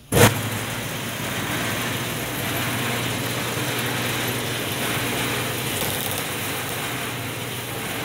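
A Bluedog BWS-80 HD industrial wire stripping machine switching on with a sharp clack, then its motor and geared feed rollers running with a steady hum as a thick XLPE-insulated copper cable is fed through.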